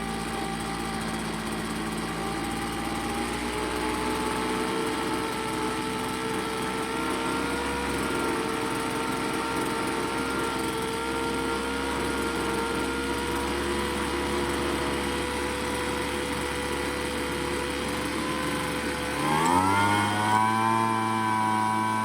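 Craftsman gas leaf blower's small engine idling, its speed creeping slowly upward as the low-speed carburetor screw is adjusted by ear. Near the end it is throttled up and the engine note climbs sharply to a steady high speed, so the high-speed mixture can be set.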